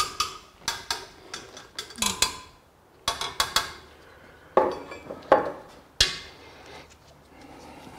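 Steel wire spokes of a Ural Tourist sidecar motorcycle's rear wheel being tapped in turn, each giving a short ringing clink. This checks spoke tension, since a loose spoke gives a dull 'dead' note. A run of quick clinks comes first, then a few louder strikes further apart.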